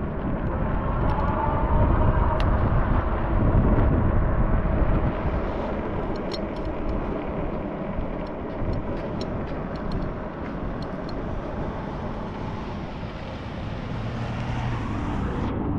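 Road and traffic noise heard from a moving e-bike, with wind on the microphone. It swells for a few seconds near the start as a vehicle goes by, and there is a run of faint ticks in the middle.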